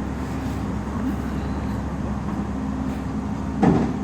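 Komatsu excavator's diesel engine running steadily with a low drone while the machine is being unloaded, with one brief louder thump near the end.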